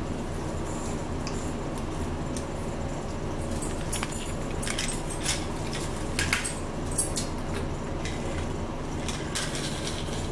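Small mealtime handling noises, a scattering of short clicks and light rattles, over a steady low background hum.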